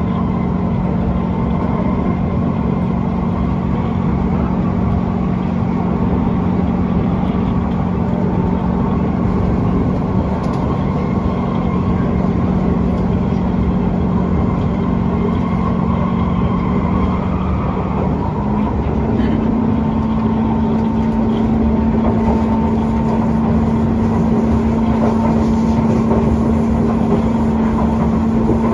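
Inside a moving SMRT C151 metro train: the steady running noise of the car on the rails, with a constant low hum that steps up slightly in pitch a little past halfway.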